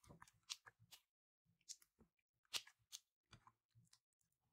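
Slime being squished and worked by hand: faint, sticky clicks and crackles, with a louder pop about half a second in and again about two and a half seconds in.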